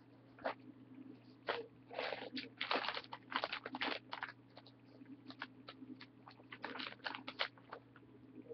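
Irregular clicks and crackles close to the microphone, busiest about two to four seconds in and again near seven seconds, over a steady low electrical hum.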